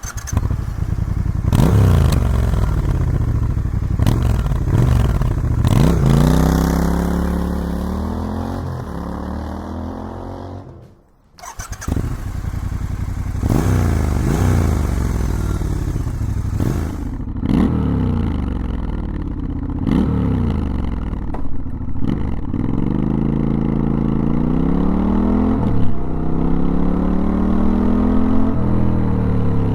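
Triumph Scrambler 1200XE's 1200 cc parallel-twin engine running through its open-pipe, de-catted stock exhaust, picked up by a microphone on the bike while riding. It repeatedly accelerates with the pitch climbing and drops back at each gear change, with a brief break in the sound about eleven seconds in.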